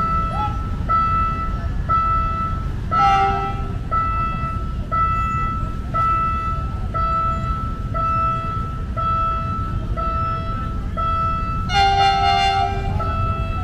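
An electronic warning beep repeating about once a second, over low street noise. A horn toots briefly about three seconds in and again for longer near the end.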